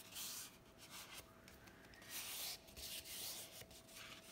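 Faint rustling and rubbing of folded watercolor paper being handled, in several short spells.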